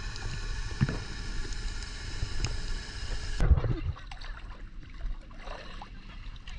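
Underwater sound through a submerged camera: a steady hiss with scattered sharp clicks and low rumble. About three and a half seconds in it cuts to small waves lapping and sloshing against a camera held at the water's surface.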